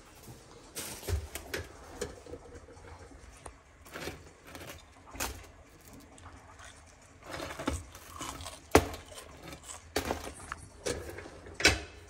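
Things being handled on a granite kitchen counter: scattered knocks, clicks and clatter with soft rustling as bread is laid on an electric contact grill. The loudest is a sharp knock about nine seconds in, with another near the end.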